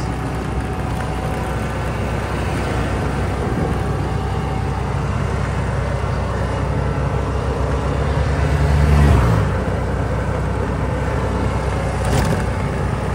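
A motor running steadily, building in level until about nine seconds in, then dropping away in pitch as it eases off. A short sharp knock comes near the end.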